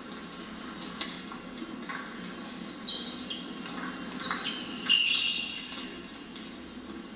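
Table tennis rally: the celluloid ball ticking sharply off bats and table, a string of hits about half a second to a second apart, with short high squeaks from sports shoes on the hall floor in the middle of the rally; the loudest hit comes about five seconds in.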